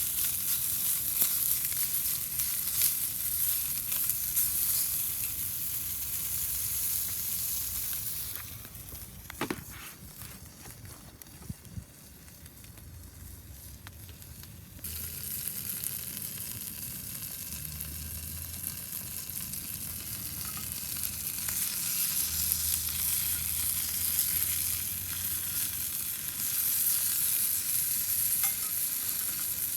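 Food sizzling in a pan over a wood fire, a steady high hiss. About a third of the way in, the sizzle fades for several seconds with a couple of light knocks, then comes back.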